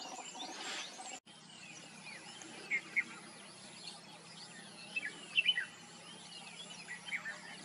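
Red-whiskered bulbul calling: short whistled notes, loudest twice near three seconds in and in a quick cluster around five seconds, over a background of other birds' chirps. The sound cuts out for an instant about a second in.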